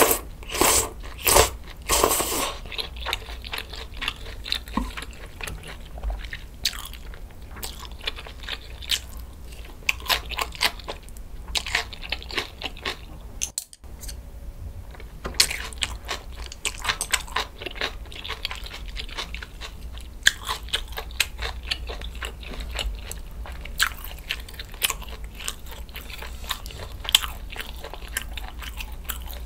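Close-miked eating: kalguksu noodles slurped in a few loud pulls at the start, then steady chewing with crisp crunches of fresh napa-cabbage kimchi (geotjeori) and boiled pork.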